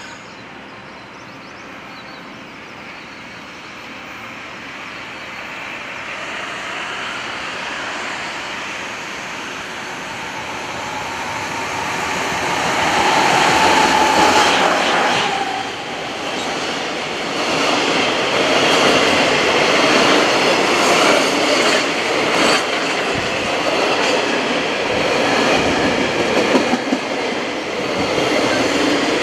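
JR Freight EF200 electric locomotive hauling a container freight train, growing louder as it approaches and goes by about halfway through, with a brief steady tone as the locomotive passes. The container wagons follow, their wheels clattering over the rail joints.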